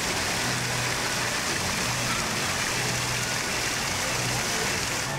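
Fountain water splashing steadily into its basin.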